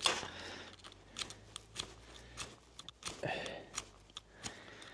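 Faint scattered clicks and light rustling, with a slightly louder rustle about three seconds in.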